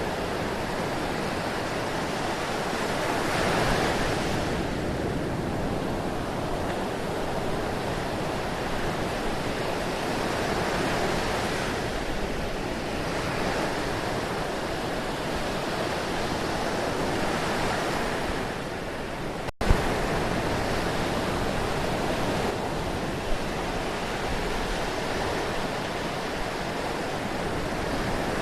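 Ocean surf washing in slow swells, a steady rushing hiss that rises and falls every few seconds. About two-thirds of the way through there is a split-second dropout followed by a click.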